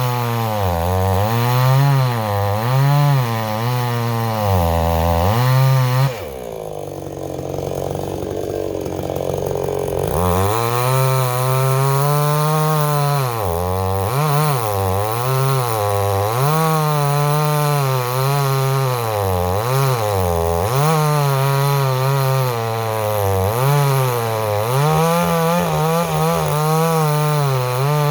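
Dereal 6220G two-stroke gas chainsaw running at high revs while cutting a big log, its pitch dipping and recovering about once a second as the chain takes load. About six seconds in, it drops to a lower, rougher idle for around four seconds, then revs back up and carries on cutting.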